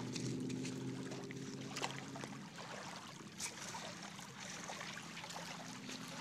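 Small stones clicking and scraping as a child digs with her hands in a pebbly shoreline, over a steady hiss. A steady low hum with several pitches is strong at first, fades about two and a half seconds in, and comes back near the end.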